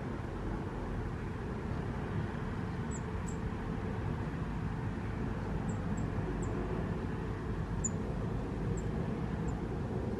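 A small bird giving short, high chirps, about eight spread across the second half, over a steady low rumble.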